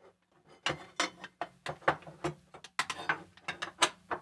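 A Shure SLX-D wireless receiver and its metal rack-mount brackets being handled and shifted on a wooden tabletop: a run of irregular clicks and knocks.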